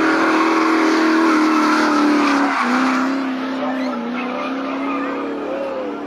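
A drift car's engine held at high revs while its rear tyres spin and squeal sliding sideways through a corner. The engine note dips once about two and a half seconds in, then fades as the car moves away.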